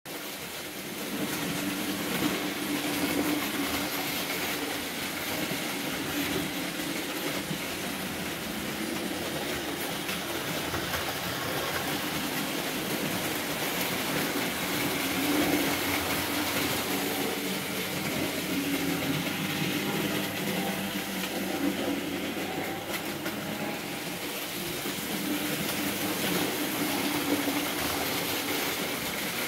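Märklin model trains running on metal track: a steady rattle of wheels over the rails with a motor hum underneath.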